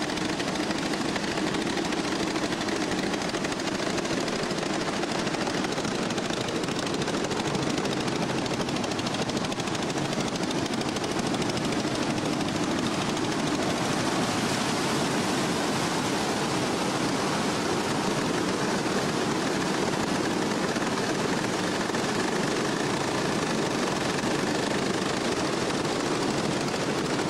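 Hama's giant wooden noria waterwheels turning in the river, a steady, even rushing and rattling noise of the timber wheel working and water pouring off it.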